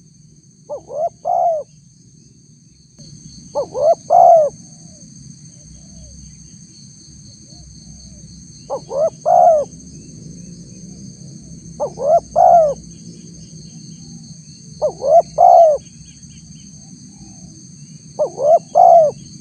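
Spotted dove (tekukur) cooing as a lure call: six short phrases of three or four notes each, roughly every three seconds, each ending on a longer note. A steady high-pitched ringing drone runs underneath.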